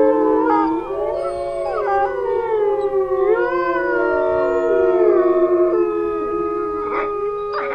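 A chorus of several canines howling together: long overlapping calls that glide up and down in pitch.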